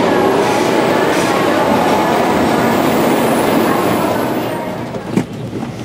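Interior running noise of an N700-series Shinkansen passenger car: a steady, loud rumble and hiss that falls off about four seconds in, with a single knock about five seconds in.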